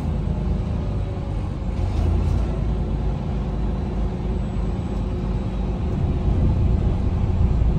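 Semi-truck's engine and road noise heard inside the cab while cruising, a steady low rumble.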